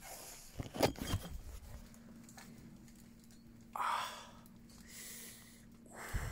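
Knocks and bumps of rummaging through bagged rubbish in a dumpster, with a brief rustle about four seconds in and another bump near the end. A faint steady hum runs underneath from about two seconds in.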